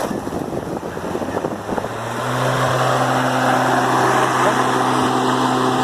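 Ryobi electric riding lawn mower starting up and running: a rising rush of noise, then a steady electric motor hum that sets in about two seconds in.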